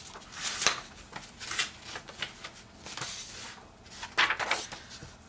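Paper rustling and being handled, sheets shifted and slid about on a desk in a series of irregular short rustles, with a busier cluster about four seconds in.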